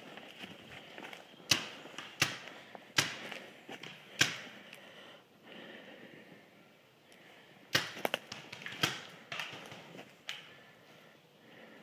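Paintball markers firing: sharp single pops of compressed-air shots, four spaced shots in the first half, then a quicker volley of about five.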